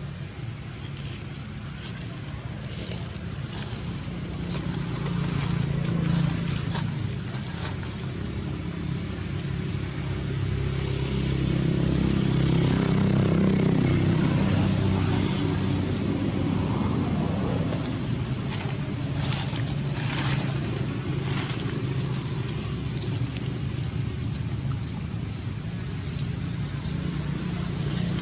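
A motor vehicle engine running with a steady low rumble that swells about halfway through and then eases off again.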